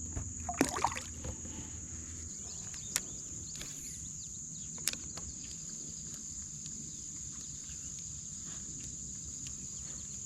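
Knocks and a light splash from handling gear on a kayak about half a second in, then two single sharp clicks, over a steady high-pitched insect drone.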